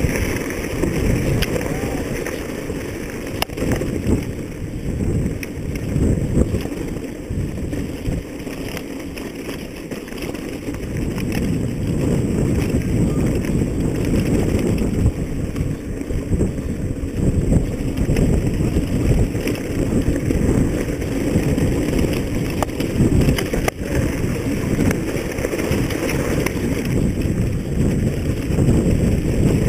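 Heavy wind buffeting on the camera microphone, a continuous low rumble that swells and eases, with a couple of sharp knocks.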